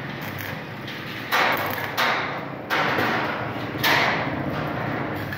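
Electric arc welding on a steel gate: the arc strikes four times in quick succession, each a sudden crackling burst that fades over about half a second, over the steady low hum of the welding machine.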